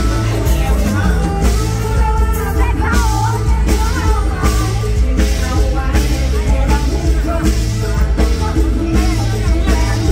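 Live mor lam band playing a steady drum beat with heavy bass and keyboards, a singer's voice over it.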